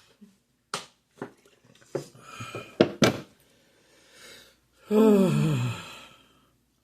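A few sharp clicks and knocks, then about five seconds in a long low burp, its pitch falling as it goes.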